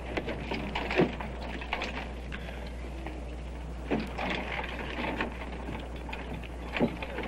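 Wooden benches knocking and scraping against a wooden wagon as they are unloaded, with several irregular dull knocks.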